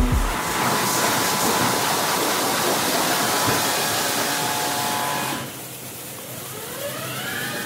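Automatic car wash: high-pressure water jets hiss steadily against a car, then cut off about five and a half seconds in. A motor in the wash machine then winds up with a rising whine that levels off.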